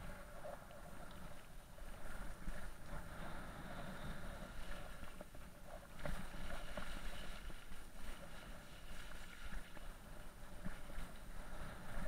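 Mountain bike tyres rolling over a wet gravel track and through puddles, a steady crunching, wet rush with many small clicks and rattles from the bike.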